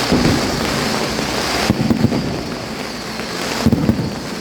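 Fireworks going off: a continuous dense crackle, with low booms from bursting shells at the start, about two seconds in, and near the end.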